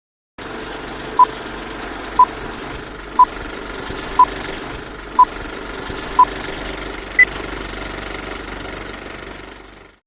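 Old film projector sound effect: a steady whirring clatter with six short beeps a second apart, then one higher beep, like a film leader countdown. It fades out near the end.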